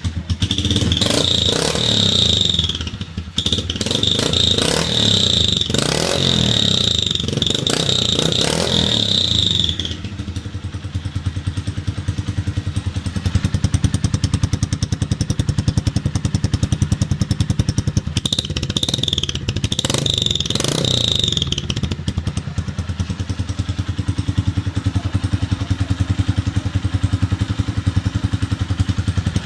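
Honda CG Titan 125 single-cylinder four-stroke engine running through a Roncar ML Competition sport exhaust. It is revved several times in the first ten seconds, settles to a steady, pulsing idle, is revved twice more about two-thirds of the way through, then idles again.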